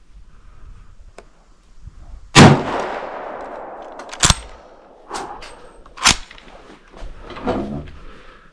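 A single 8mm Mauser rifle shot from a Yugoslavian M95M straight-pull Mannlicher, about two and a half seconds in, echoing away over a second or more. Sharp metallic clacks follow about two and four seconds later.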